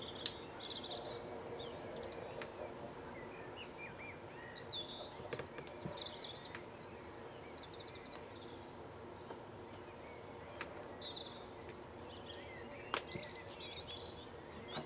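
Faint birdsong: short chirps and warbles, with a brief trill about halfway through, over a low steady hum. A few sharp clicks come from plastic push-fit air fittings being handled.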